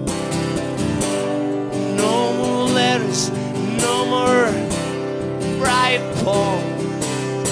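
Live solo acoustic performance: a strummed acoustic guitar under a lead melody whose pitch bends and wavers in phrases of about a second.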